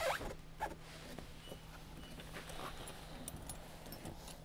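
Faint handling noises as a fender cover is shifted and a plastic headlight assembly is lifted, with a few light clicks near the start.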